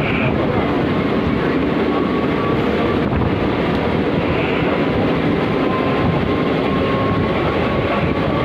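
Train running at speed heard from its open doorway: a loud, steady rumble of wheels on rails and rushing air, with a faint steady whine over it.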